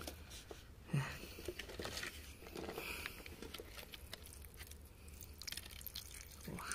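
Thin jet of water spraying and splashing onto a crystal in wet clay, with faint dripping and scattered small clicks.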